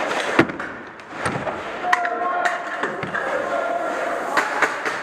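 Sharp clicks and knocks, about half a dozen, the loudest about half a second in, over a steady noisy background with faint distant voices.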